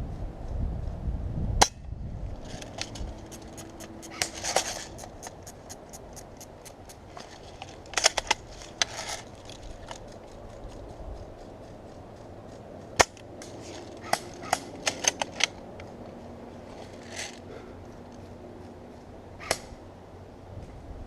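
Airsoft guns firing: about a dozen sharp single cracks spread out, including a quick run of about five shots around two-thirds through, with fainter rapid clicks of more distant fire between them. A low rumble sits under the first two seconds.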